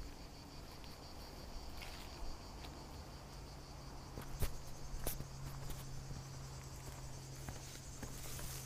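Insects chirring steadily in a high, thin drone, with a few sharp clicks of footsteps on stony ground.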